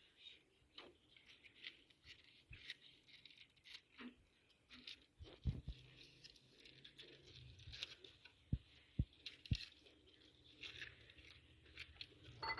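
Quiet food-preparation handling: faint scattered scrapes, rustles and small clicks, with a soft knock about halfway through and three more knocks about half a second apart a little later.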